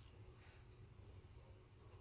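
Near silence: room tone, with a couple of faint ticks as a paper sticker card is handled.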